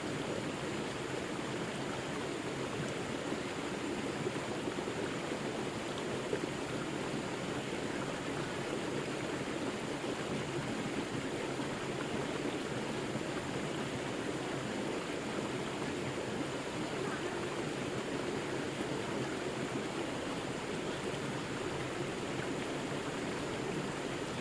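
River water flowing, a steady, unbroken sound of running water.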